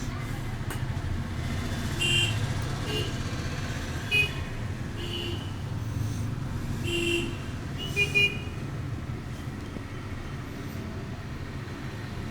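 Steady road-traffic rumble with a series of short vehicle horn toots. The loudest toots come about four seconds in and again about eight seconds in, the last as a quick double.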